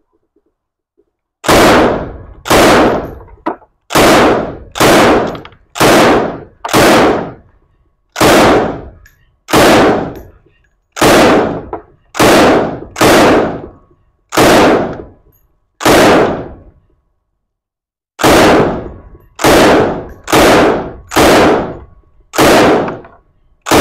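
Semi-automatic UKM belt-fed rifle in 7.62x54R firing about twenty single shots in quick succession, roughly one a second, each a sharp crack with a short ringing tail, with a pause of about two seconds two-thirds of the way through.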